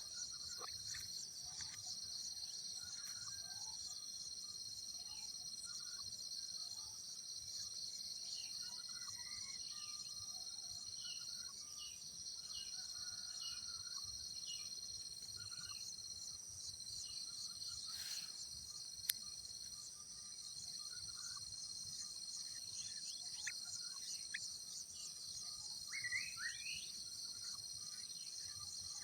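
Steady high-pitched chorus of crickets or cicadas, with scattered short bird chirps over it. There is one sharp click about two-thirds of the way through.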